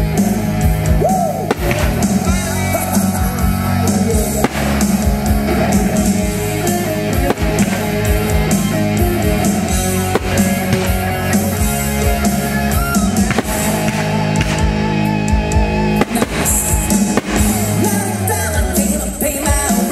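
Music: a song with singing, guitar and drums.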